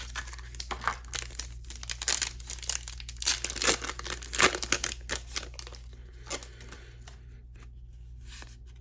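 Foil trading-card booster pack wrapper being torn open and crinkled by hand: a dense run of sharp crackles for about six seconds, then quieter rustling as the wrapper is handled.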